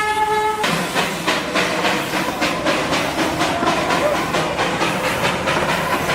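Darjeeling toy train's steam locomotive: its whistle cuts off about half a second in, then the engine chuffs in a steady rhythm of about three to four exhaust beats a second.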